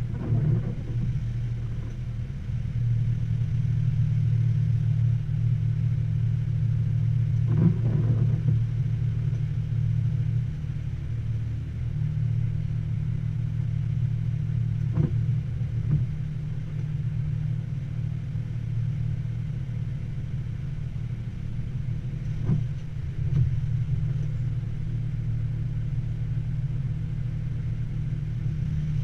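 Military truck engine running while the truck manoeuvres slowly, heard from inside the cab: a steady low hum, slightly louder in the first third, with a few short knocks.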